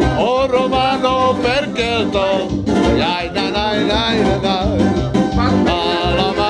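A man singing a wavering melody, accompanied by a mandolin picked in a steady rhythm.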